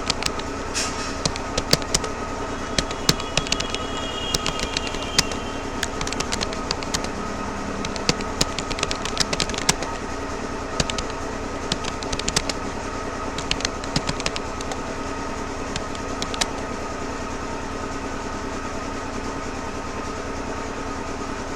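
Irregular keystrokes on a Rapoo computer keyboard during typing practice, thinning out and stopping about three-quarters of the way through. A loud steady machine hum with several fixed tones runs underneath.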